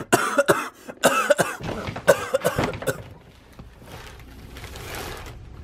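A young man coughing and making short throaty noises in quick succession for about the first second and a half, then a quieter low steady noise.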